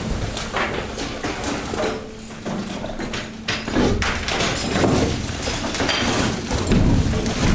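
Hydraulic waste compactor crushing refuse: a run of irregular cracking, crunching and thuds as the waste gives way under the ram, over the steady hum of the hydraulic power unit.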